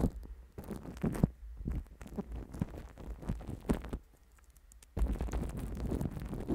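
Fingertips dabbing and pressing white foam on a cling-film-wrapped microphone: sticky, crackly contact sounds right at the mic over a deep handling rumble. The sound drops to near silence about four seconds in, then comes back denser with rubbing and crinkling of the plastic.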